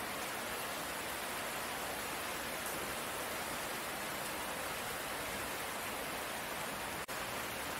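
Steady, even rain, a soft hiss of drops falling on leaves, with a brief dropout about seven seconds in.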